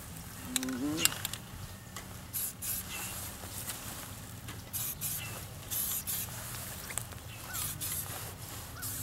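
Aerosol spray-paint can sprayed in about six short bursts, each a brief hiss.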